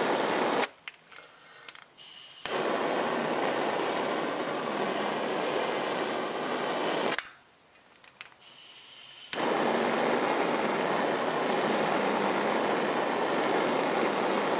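Butane crème brûlée torch flame hissing steadily in three long stretches, stopping briefly about a second in and again around seven seconds in.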